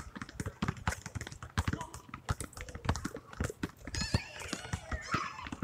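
Several basketballs being dribbled on asphalt: many irregular, overlapping bounces, several a second. A child's high voice cries out about four seconds in.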